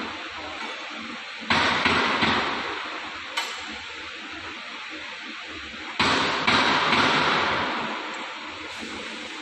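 Heavy metal clanks of chain-grate parts being knocked or hammered: a cluster of three blows about one and a half seconds in, a single sharper knock near the middle, and two more about six seconds in, each ringing away over a second or two.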